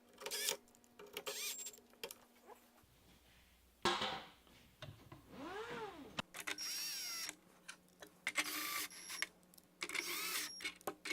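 A small motor whirring in short bursts, about six times, each start-stop with a whine that bends up and down in pitch.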